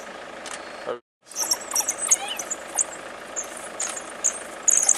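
African wild dogs giving high-pitched twittering and squeaking calls in short bursts, over the steady hum of an idling vehicle engine. The sound cuts out briefly about a second in.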